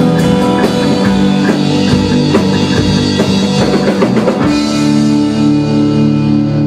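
Rock band of electric guitar, bass guitar and Tama drum kit playing the end of a song. About four and a half seconds in they land on a final chord and let it ring.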